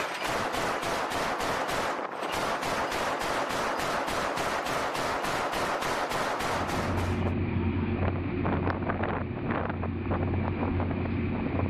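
Mk 38 25 mm chain gun firing a steady string of shots, about three a second. About seven seconds in, the shots turn duller and sit over a steady low drone.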